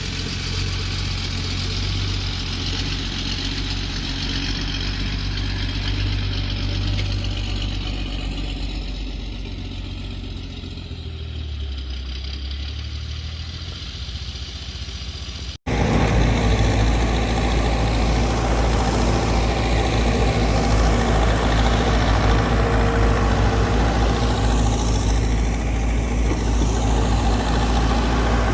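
Heavy construction-machinery diesel engine running steadily, its pitch dropping for a moment about eleven seconds in. An abrupt cut comes about halfway through, after which the engine runs louder and steadier.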